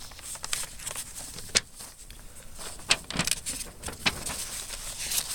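Sheets of a letter being handled and turned: soft paper rustles and light taps, with a sharp tick about one and a half seconds in and another at about three seconds.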